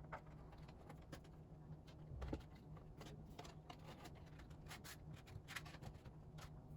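Faint, scattered clicks, crinkles and rustles of album packaging and photocards being handled, with a soft thump a little over two seconds in.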